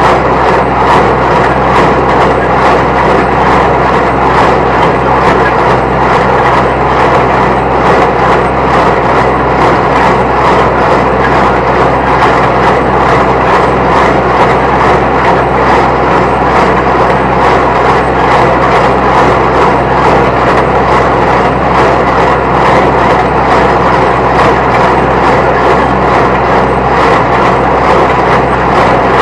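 New Holland T1510 compact tractor running steadily under PTO load while driving a New Holland 269 Hayliner square baler, with a regular beat from the baler's working strokes.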